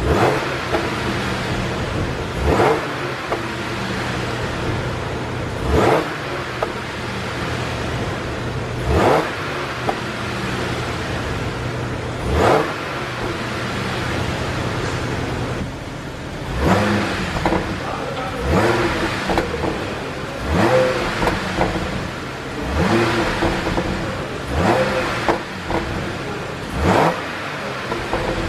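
2012 Audi A6 3.0 TFSI's supercharged V6 idling and blipped repeatedly, about every three seconds at first, then in quicker bursts in the second half. The exhaust pops and crackles as the revs drop, from a pop-and-crackle tune.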